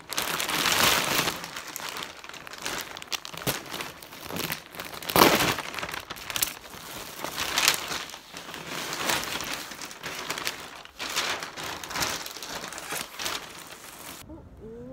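Plastic mailer bag and plastic wrapping crinkling and rustling as a parcel is handled and a padded jacket is pulled out, in a dense run of sharp crackles that cuts off suddenly near the end.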